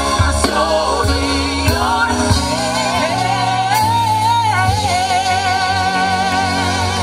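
Live gospel music: a singer's voice over band accompaniment, rising into one long held note with vibrato about halfway through.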